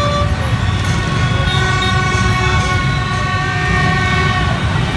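Dense motorbike traffic, many small engines running together in a steady low rumble, with several long horn blasts held over it.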